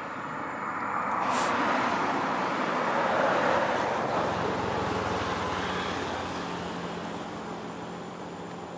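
A road vehicle passing: rushing engine and tyre noise that swells over the first few seconds and then slowly fades, with a low steady engine hum in the second half.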